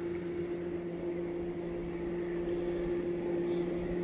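A steady, low mechanical hum from a distant motor, over the even rush of the river's water.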